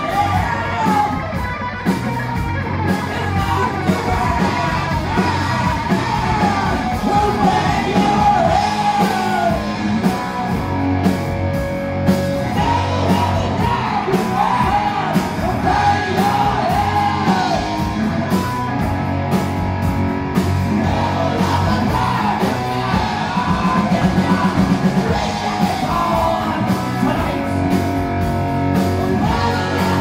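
Live rock band playing loud: a singer half-sings, half-yells into a microphone over drums and electric guitar. About three-quarters of the way through, the drums break into a fast roll.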